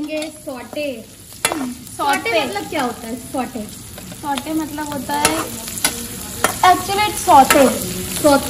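A perforated steel skimmer scraping and stirring onions and garlic around a metal wok as they sauté in hot oil. The scraping strokes come about two a second, each falling in pitch, with metal clicks between them over a light sizzle, and they grow louder near the end.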